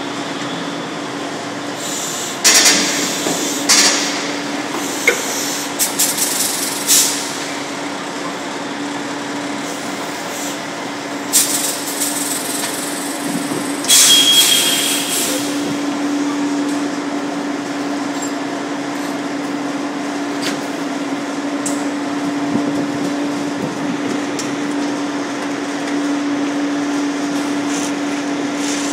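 Machinery running with a steady hum, with a string of loud bangs and clatters in the first half.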